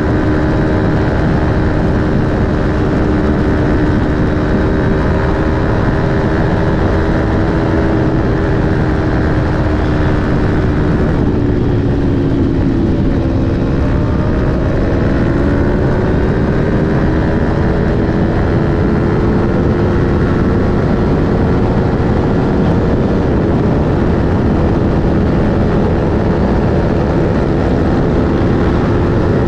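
Aprilia Tuono 1100 RR's V4 engine with an Akrapovic slip-on exhaust running hard at steady highway speed, with wind rush over it. The engine note dips a little about halfway through, then climbs again as the bike pulls back up to speed.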